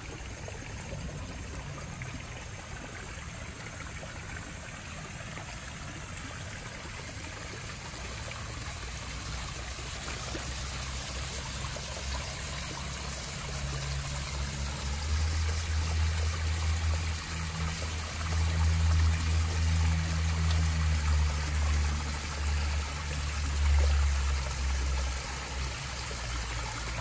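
Water running steadily into a backyard koi pond from its waterfall. A strong low rumble comes in about halfway through and lasts until near the end.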